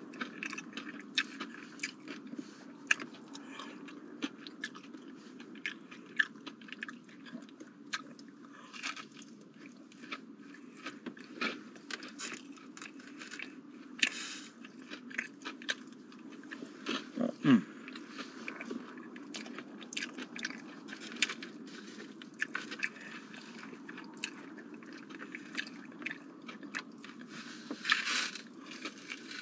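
Close-miked chewing and biting of breaded chicken tenders: wet mouth clicks and small crunches all through, with a louder bite near the end, over a low steady hum.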